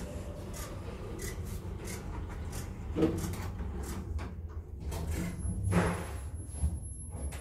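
Low steady hum inside a KONE lift car, with rubbing and clicking noises and two louder knocks, about three seconds and six seconds in.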